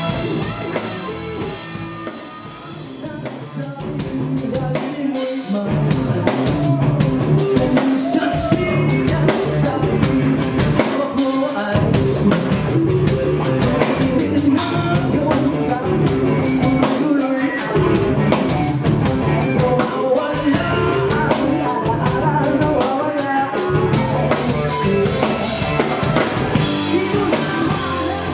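Live rock band playing: electric guitars, bass and drum kit with lead vocals. It is quieter for a couple of seconds near the start, then the whole band comes in fully with busy drums and cymbals.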